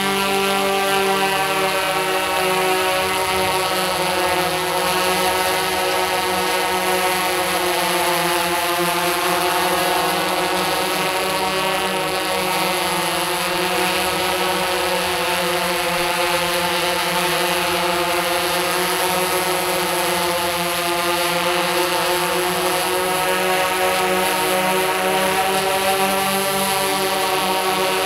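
Tarot X8 octacopter's eight motors spinning DJI 1552 propellers while it hovers: a steady, many-toned propeller hum whose pitch wavers slowly up and down.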